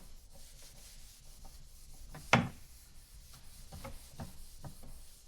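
Rubbing and scraping handling noises with scattered light clicks and one sharper knock a little over two seconds in.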